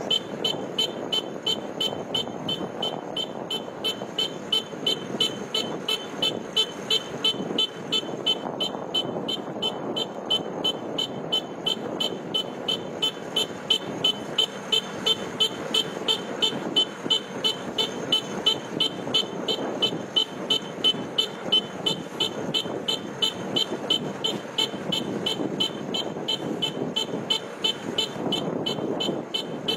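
Kubota combine harvester's engine running steadily, with a high electronic beeper sounding about twice a second throughout.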